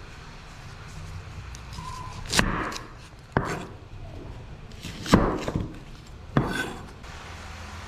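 Chef's knife cutting through an onion onto a wooden cutting board: four separate cuts, each ending in a sharp knock of the blade on the board.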